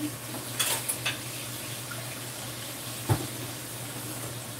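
Steady hiss with a low hum under it, broken by a few light clicks about a second in and a sharper knock about three seconds in.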